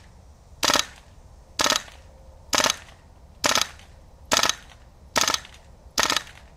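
Gas blowback airsoft gun firing semi-automatic: seven sharp shots about a second apart, each with the clack of the gas-driven recoil.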